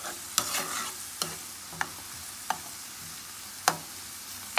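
Chopped onion, garlic and hot pepper sizzling in oil in a frying pan while a wooden spoon stirs them, with about five sharp knocks of the spoon against the pan, the loudest near the end.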